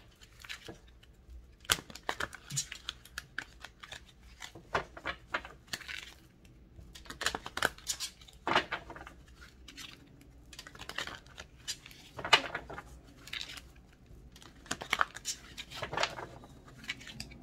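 Tarot cards being shuffled and handled: short bursts of quick flicks, snaps and rustles with pauses between them.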